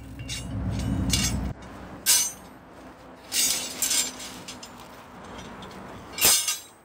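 Steel rebar offcuts clanking against each other as pieces are dropped onto a pile of scrap rebar in a woven bulk bag: about five sharp metallic clanks, the loudest near the end. A low rumble runs underneath for the first second and a half.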